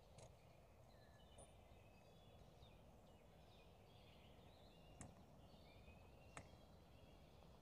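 Faint birdsong from several small birds, quick chirps and trills over a low steady background rumble, with a few sharp ticks.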